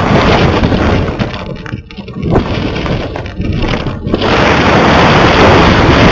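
Wind rushing and buffeting over the microphone of a camera carried aloft by a kite. It is loud, thins out into broken crackling for a couple of seconds, then returns in full about four seconds in as the kite climbs.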